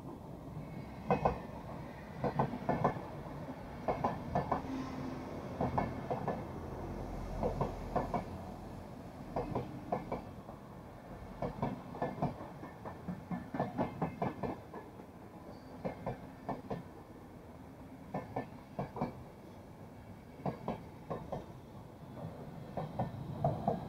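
InterCity passenger coaches rolling past at speed, their wheels clattering over rail joints in quick clusters of clicks every second or two over a steady rolling rumble. The electric locomotive pushing at the rear passes near the end.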